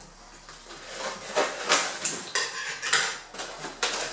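Packing tape being cut and peeled off a cardboard box: a run of short crackling rips, starting about a second in.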